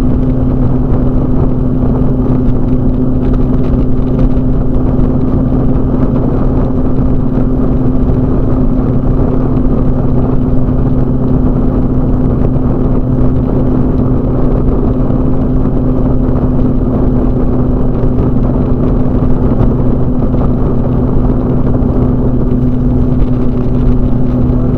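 Microlight trike's engine and propeller droning steadily in level cruise flight, one unchanging pitch throughout.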